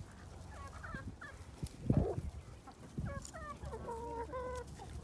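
Chickens clucking and squawking in short pitched calls, with a run of longer held calls near the end. Wind rumbles on the microphone, and there is a thump about two seconds in.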